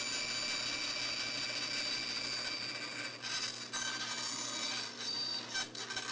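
1955 Delta Milwaukee 14-inch bandsaw cutting a notch out of a plywood panel, a steady sawing noise with a high whine, starting abruptly and dipping briefly twice.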